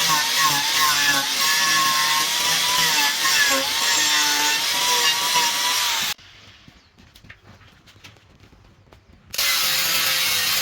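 Wood lathe turning a piece of wood while a chisel cuts into it: a loud, steady scraping rush with a wavering whine. It cuts out abruptly about six seconds in, leaving only faint clicks, and starts again about three seconds later.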